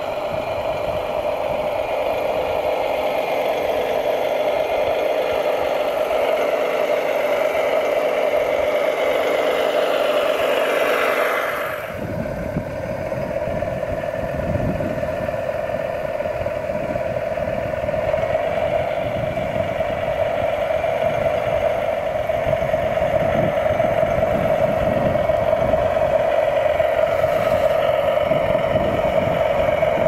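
Radio-controlled scale Volvo wheel loader driving, giving a steady engine-like drone. The sound changes abruptly about twelve seconds in, turning rougher and lower.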